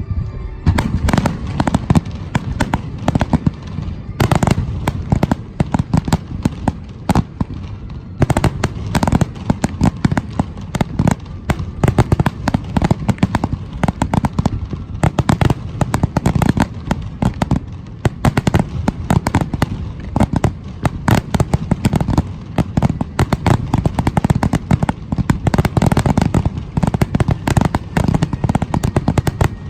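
Fireworks finale barrage: aerial shells bursting in a rapid, dense, continuous stream of overlapping bangs and crackles, starting abruptly.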